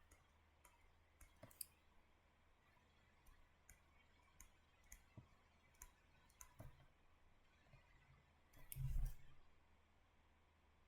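Faint, scattered clicks, about a dozen, from digital drawing during the lecture, with one louder low thump about nine seconds in.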